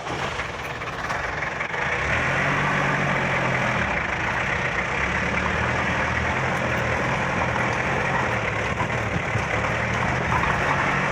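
Engine of a 30-year-old Kia Ceres light truck running steadily. It swells over the first couple of seconds, then holds a low, even engine note under broad road or cabin noise.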